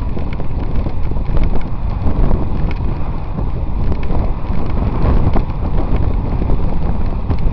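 Wind buffeting the microphone of a camera riding on a moving road bicycle: a loud, continuous low rumble that rises and falls unevenly.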